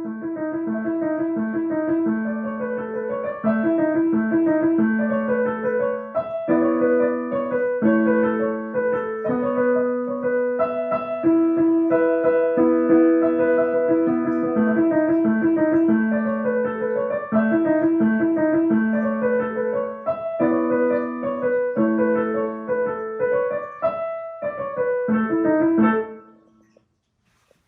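A student plays a beginner piano piece, repeating short melodic figures over a steady bass pattern. The sound comes through a video call. The playing stops near the end, on a final note.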